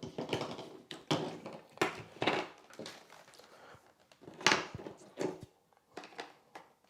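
Hard plastic vacuum accessories being handled, a tool fitted onto the flexible hose: a scattered series of short knocks, clicks and scrapes, the sharpest about four and a half seconds in.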